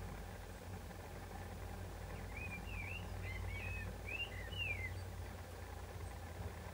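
A small songbird gives a short warbling phrase of quick sliding, twittering notes for about two and a half seconds, starting about two seconds in, over a steady low rumble.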